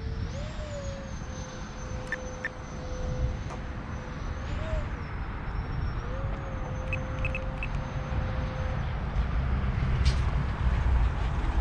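Electric ducted-fan whine of a radio-controlled F-22 model jet in flight, a steady note that swoops up in pitch briefly three times and drops out about nine seconds in, over a low rumble.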